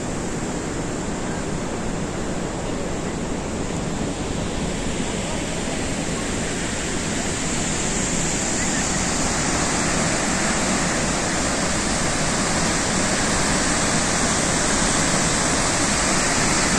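Steady rush of a large waterfall, a dense even hiss, growing slightly louder and brighter about halfway through.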